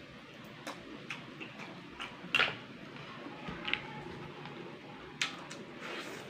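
Eating sounds of a person sucking snails stewed in coconut milk and eating rice by hand: scattered sharp mouth clicks and smacks, the loudest about two and a half seconds in.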